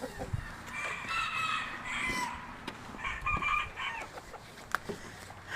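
A rooster crowing twice, a longer crow about a second in and a shorter one about three seconds in.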